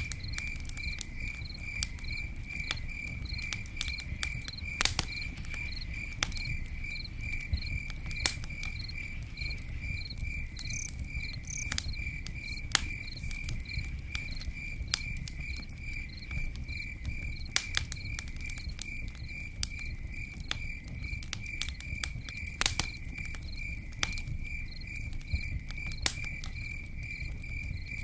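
A campfire crackling and popping with scattered sharp snaps over a low rumble, while a cricket chirps in a steady, even pulse of several chirps a second.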